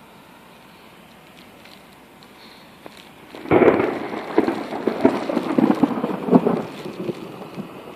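A thunderclap breaks suddenly about three and a half seconds in, crackling and rumbling loudly, then fades away over the next few seconds.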